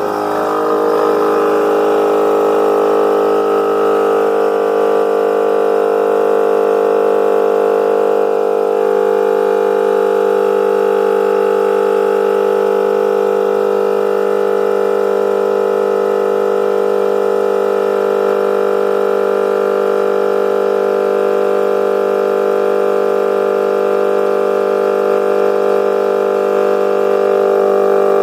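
Alca two-cylinder portable air compressor starting up and running steadily, pumping air into a tyre to inflate it and seat it onto the rim. Its steady pitched drone shifts slightly about nine seconds in.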